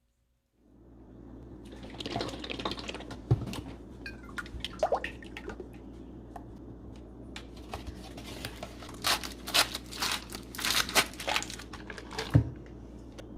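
Food-preparation handling sounds: irregular clicks, knocks and taps of utensils and containers, with liquid and rustling sounds, over a steady low hum. The knocks come thickest and loudest in the second half.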